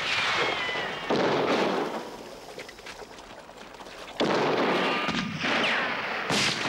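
Gunshots in a gunfight, one right at the start and another about a second in. After a quieter stretch come two more, about four seconds in and near the end, each with a decaying tail and some with a thin falling whistle.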